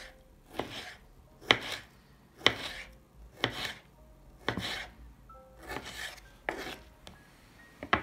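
Kitchen knife cutting kiwi on a wooden cutting board, about one cut a second. Each cut is a sharp knock of the blade on the board with a short slicing rasp.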